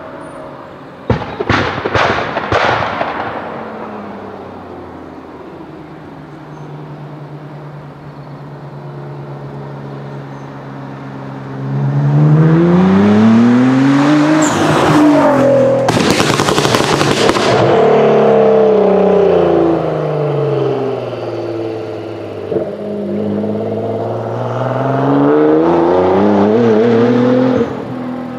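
Nissan GT-R R35's twin-turbo V6 crackling and popping a few times, then running steadily as the car approaches. It accelerates hard past at full throttle: the pitch climbs, breaks at a gear change and falls away as it passes, then climbs again through the next gear before cutting off.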